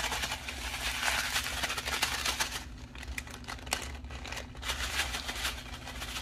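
A small plastic bag of square resin diamond-painting drills being shaken with a scrap of dryer sheet inside. The bag crinkles while the drills rattle, steadily for about two and a half seconds, then in shorter bursts.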